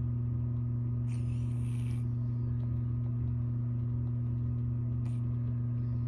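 A steady low hum at constant level, with a brief hissing, whistly sound about a second in.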